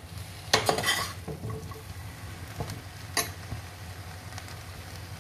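Cut raw jackfruit pieces being tossed in a non-stick pan and mixed with a metal slotted spoon. There are a few short knocks and clinks of the spoon and pieces against the pan, a quick cluster about a second in and single ones later, over a steady low hum.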